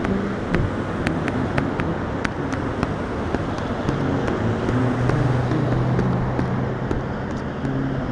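Road traffic passing through a busy intersection: the engine and tyre noise of cars and pickups driving by, with a steady low engine hum in the middle stretch and a few faint clicks.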